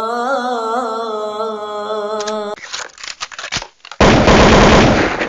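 A man singing unaccompanied holds a long wavering final note, which stops about two and a half seconds in. A second of scattered clicks and rustling follows, then a sudden loud rush of harsh noise starts about four seconds in, the sound effect of the subscribe end screen.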